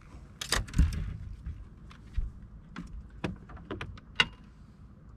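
Irregular knocks, clicks and rattles of a landing net and its catch being handled on a bass boat's deck, loudest about half a second to a second in, with a sharp clink just past four seconds.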